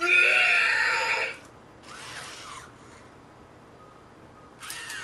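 A toy robot's electronic voice playing a loud, warbling, squealing utterance about a second and a half long. A fainter short gliding call follows about two seconds in, and another starts near the end.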